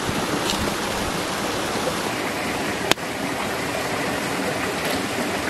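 Steady rushing of running water, like a stream, with one sharp click about three seconds in.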